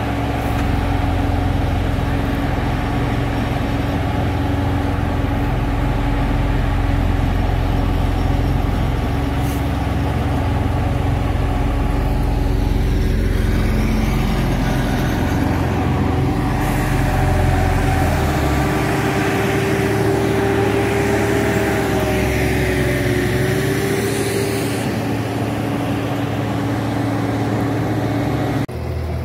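Diesel engines of road-paving machinery running steadily: an asphalt paver, with other heavy vehicles nearby. Partway through, a higher engine tone rises and falls over the steady hum.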